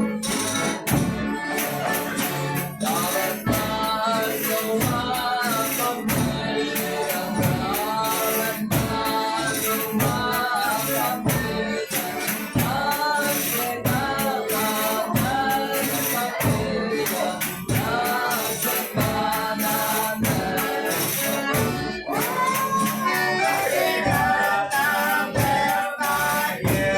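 Folia de Reis music: several voices singing together over a steady beat of tambourine and shaken percussion.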